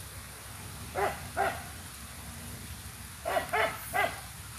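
A dog barking, five short barks: two about a second in and three near the end, over the steady hiss of hard rain.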